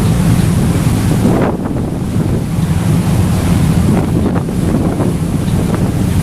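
Wind buffeting the microphone aboard a moving harbour ferry, over a steady low drone from the ferry and water rushing past the hull. Gusts rise and fall now and then.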